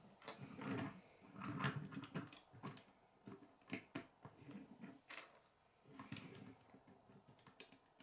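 Plastic K'nex pieces being handled and snapped together: a scattered string of sharp clicks with softer rustling between them.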